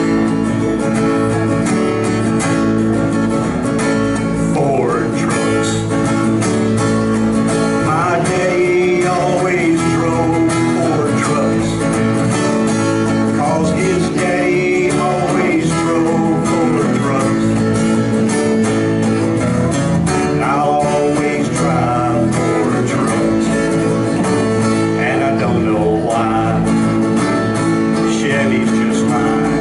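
Live country song: a man singing into a microphone over a strummed acoustic guitar, with other guitars playing along.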